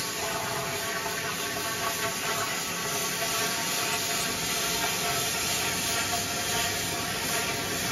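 Plasma cutter torch cutting into the top of a steel drum: the arc starts up abruptly, then runs as a steady hiss with faint high tones.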